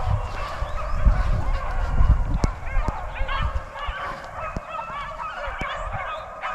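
A pack of beagles giving tongue on a rabbit's trail: many short, overlapping yelps and bays in chorus as the hounds run the rabbit. Low rumbling thumps sound under the first half.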